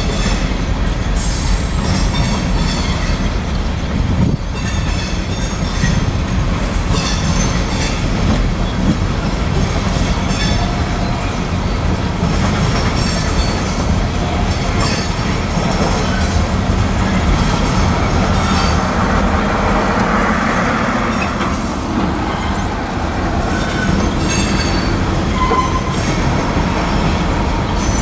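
Freight train tank cars rolling past close by, a steady heavy rumble with the wheels clicking over rail joints. A short, thin wheel squeal is heard near the end.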